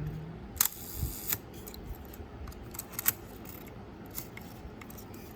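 Minolta SRT 102 SLR camera's mirror and cloth focal-plane shutter firing at a slow speed of about half a second: a sharp release click about half a second in, then a short noisy run that stops a little over a second in. A few small mechanical clicks follow.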